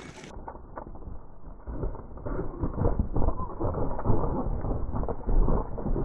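Plastic silage sheeting crackling and scraping as terriers scrabble over and under it among the tyres, with dull low rumbling and knocks, growing a little louder towards the end.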